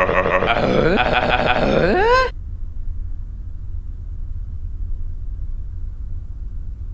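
A groaning voice in long pitch glides that rise and fall, twice, cutting off abruptly about two seconds in. A steady low hum follows.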